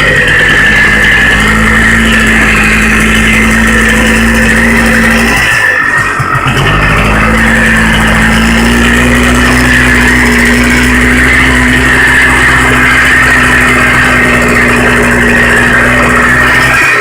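Polaris two-stroke engine running loudly at a steady speed, its pitch creeping slightly upward. It drops out for about a second midway, then picks up again and holds steady.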